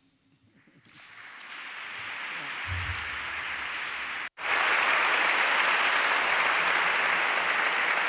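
Audience applauding, swelling up gradually over the first few seconds; it cuts out for an instant about four seconds in, then carries on louder and steady.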